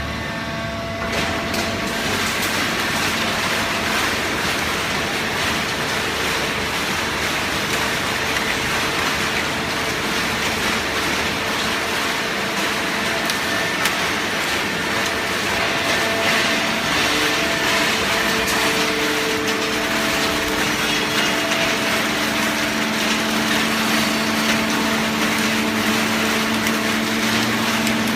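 Fully automatic horizontal hydraulic cardboard baler running: a steady machine hum under dense crackling noise of cardboard being pressed.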